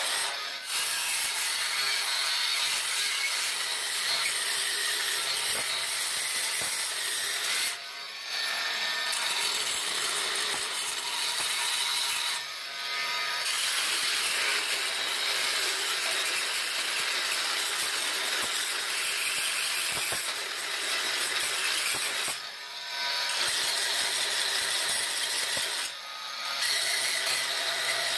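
Oscillating multi-tool with a diamond grout-removal blade grinding old grout out of the joints between floor tiles: a steady, high rasping buzz that eases briefly five times as the blade moves along or between joints.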